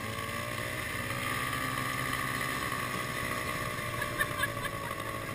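Snowmobile engine running steadily under way, heard from the rider's seat.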